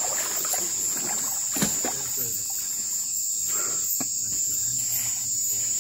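A chorus of crickets and other insects calling in a steady, high-pitched drone, with a sharp click about a second and a half in and another near the middle.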